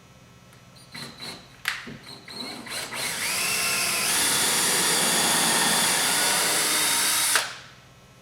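Power drill running in a few short bursts, then steadily for about four seconds before stopping suddenly.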